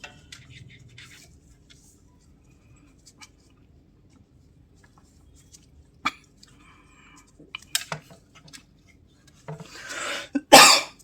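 Faint scattered clicks and taps of small parts being handled at the workbench, then near the end a person breathes in and gives one loud cough.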